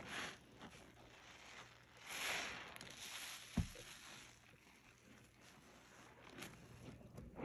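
Rubber-gloved hands squeezing a sponge loaded with Ajax detergent: two hissing, squishing squeezes, the second and longer about two seconds in, with small crackles between. A single dull thump about three and a half seconds in is the loudest sound.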